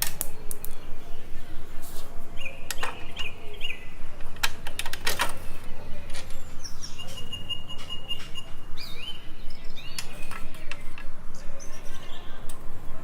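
Small birds chirping in short whistles and rising glides, with several sharp clicks and knocks among them.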